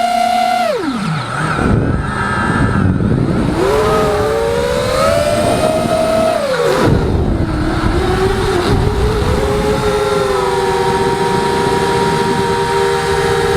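Eachine Wizard racing quadcopter's Emax brushless motors and propellers whining with the throttle. The pitch drops sharply about a second in, climbs again, falls near the seventh second, then holds steady for the last few seconds, over a rushing noise.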